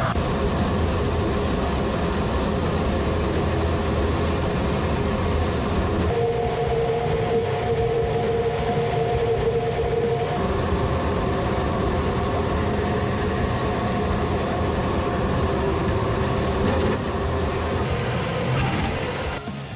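Sukhoi Su-25 attack jet's twin turbojet engines running in flight: a continuous rushing noise with steady whining tones. The tones change abruptly about six and ten seconds in, and the noise eases slightly near the end.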